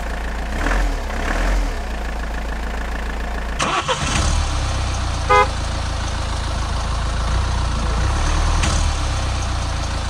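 Dubbed truck engine sound effect running steadily with a low rumble, changing character about three and a half seconds in, with a short horn beep about five seconds in.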